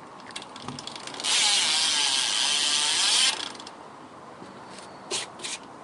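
BMX freecoaster rear hub (Madera Gulf) ratcheting as the rear wheel spins: a fast, loud clicking buzz for about two seconds, like a cassette hub. A couple of short clicks follow near the end.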